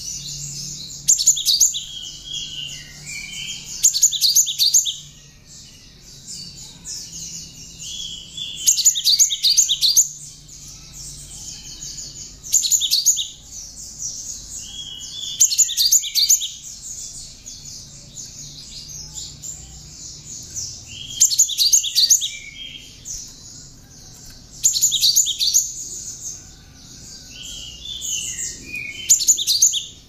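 Cinereous tit (gelatik batu) singing a song filled with bar-winged prinia (ciblek) phrases. It comes in loud bursts of rapid, high chirping about a second long, repeated every three to four seconds, with softer falling notes between them.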